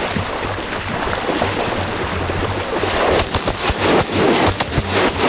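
Background music, then from about three seconds in a quick, irregular run of sharp cracks: shotguns firing at a flight of blue-winged teal.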